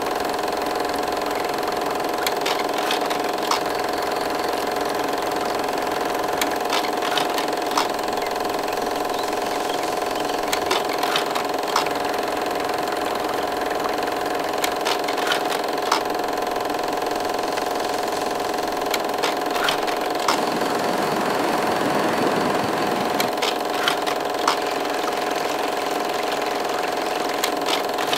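Steady mechanical hum holding several fixed tones, with scattered sharp clicks throughout and a brief rushing swell about twenty seconds in.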